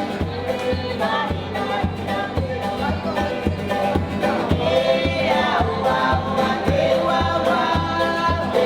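Group of voices singing in chorus over a steady drum beat, a lively sung performance.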